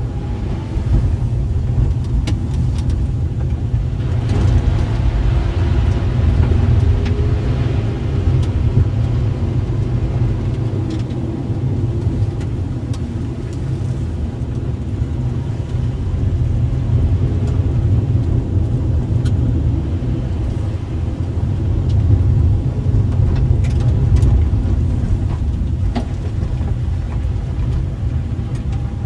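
A car driving, heard from inside the cabin: a steady low rumble of engine and tyres, with the engine note rising and falling a little, and a few sharp ticks through the second half.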